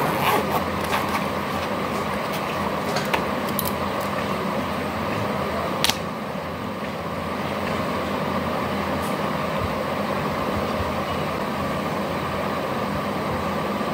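A steady hum and rush, with a few sharp clicks and rustles as paper wrapping is pulled off a small cardboard ring box and the box is opened.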